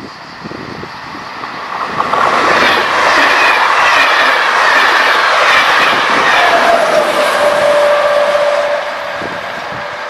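SNCF passenger train of Corail reversible coaches and a BB 7410 electric locomotive passing at speed close by: rushing wheel-on-rail and air noise builds about two seconds in, with a whine that falls in pitch as it goes by, and drops off sharply near the end as the train pulls away.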